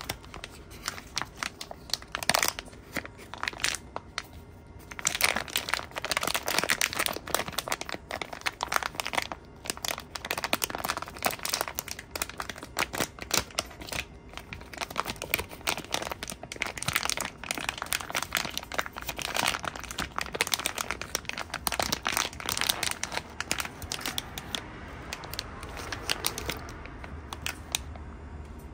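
Paper wrapper and plastic food pouch crinkling and rustling as they are handled and opened, in fits and starts with a short lull a few seconds in.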